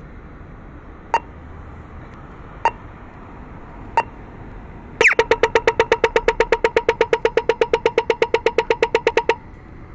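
Audio-tactile pedestrian crossing signal: three slow locator ticks well over a second apart. About five seconds in, a falling 'pew' sweep marks the start of the walk phase, followed by rapid ticking about nine times a second for some four seconds, then it stops suddenly.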